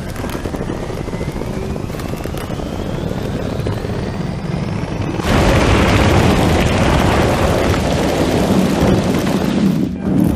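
Electric Audi SUV on spiked tyres climbing a steep snow slope: a steady rumble with a faint rising whine, then about five seconds in, a sudden louder rushing noise of the studded tyres churning through snow.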